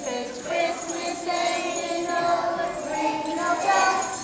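A group of young children singing together while shaking small jingle bells.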